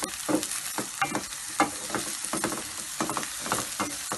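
Chopped onion, green onion and garlic sizzling in oil in a metal pot, while a spatula stirs and scrapes against the pot in irregular strokes, several a second.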